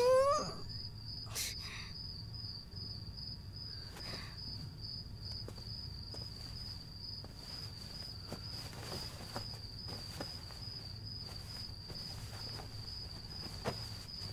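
Crickets chirping in a steady, evenly pulsing high trill, as night ambience. It opens with a woman's brief rising vocal sound.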